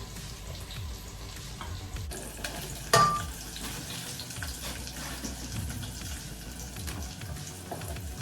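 Food sizzling as it fries in a pan, with a sharp clink that rings briefly about three seconds in.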